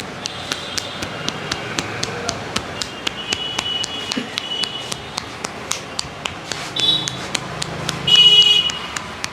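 Rhythmic hand taps of a head massage, sharp slaps on the scalp at about four to five a second. Several shrill high-pitched calls sound over the tapping, the loudest one lasting over half a second near the end.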